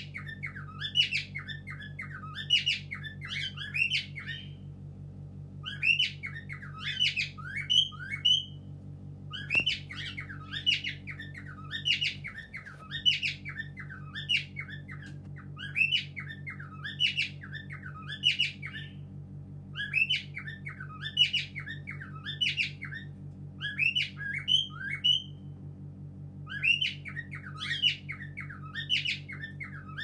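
Caged cockatiels chirping and squawking in quick, repeated bursts of high calls with short pauses between them, over a steady low hum.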